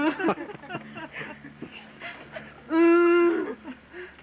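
A girl's voice giving a wordless whining wail, held on one pitch for over half a second and then dropping off, about three seconds in, with quieter mumbling before it.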